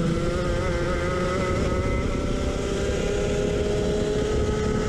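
Racing go-kart engine running hard at high revs, heard on board, its note rising slowly and steadily as the kart accelerates, over a rough low rush.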